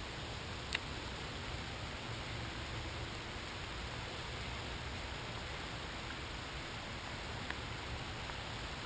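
Steady rain falling on the river and foliage, an even hiss, with one sharp click about a second in.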